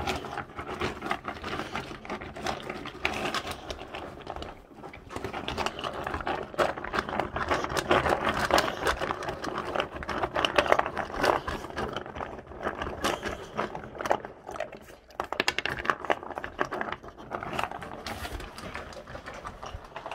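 Boxer dog eating dry kibble greedily from a stainless steel bowl: rapid crunching and chomping, with kibble and bowl clattering. Loudest about eight to eleven seconds in.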